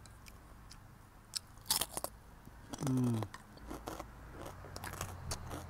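Crisp fried danggit (dried rabbitfish) being bitten and chewed: a scattering of crunchy clicks, loudest about two seconds in. About three seconds in, the eater lets out a short hum that falls in pitch.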